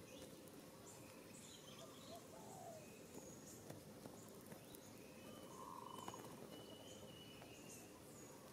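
Near silence: faint outdoor ambience with scattered short, high bird chirps and a few brief calls.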